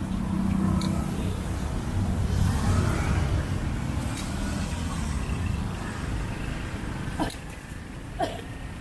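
Oil bubbling in a large aluminium deep-fry pan, under a steady low rumble, with two sharp clicks near the end.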